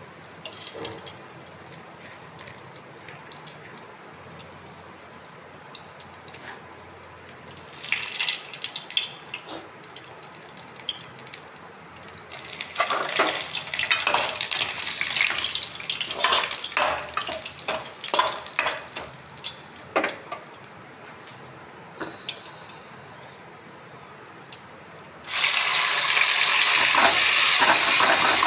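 Clinks and scrapes of a utensil stirring in a pan. About 25 seconds in, a sudden loud sizzle starts as food hits hot oil, and the frying keeps going.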